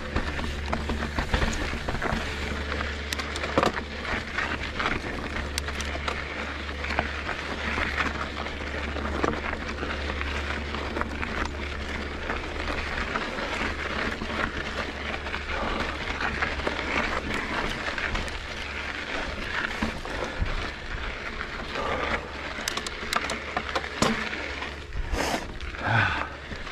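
Mountain bike riding over a dirt trail: a steady rush of tyre and trail noise with a low rumble, broken by frequent rattles and clicks from the bike.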